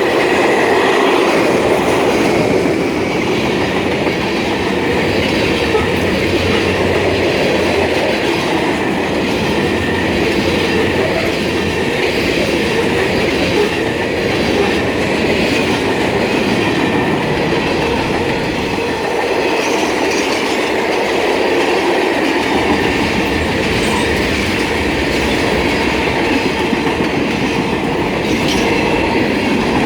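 Railroad cars rolling past at speed, wheels clattering over the rails, with a squeal from one wheel in the consist.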